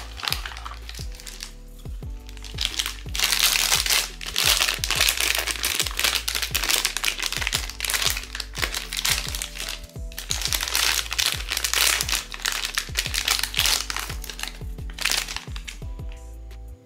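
Blind-box packaging crinkling and crackling as it is handled and unwrapped, in two long loud stretches, over background music with a steady beat.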